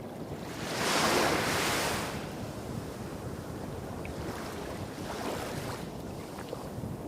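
Small sea waves breaking and washing up a beach: one wave swells into a loud hiss about a second in and dies away, and a smaller wash follows about five seconds in. Under it runs a steady low rumble of larger waves hitting rocks farther off.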